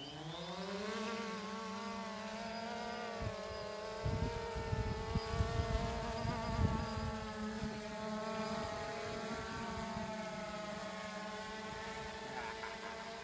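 DJI Phantom quadcopter's four electric rotors spooling up with a rising whine, then a steady buzzing drone as it climbs under the load of a towed glider. From about four seconds in, low buffeting rumbles on the microphone.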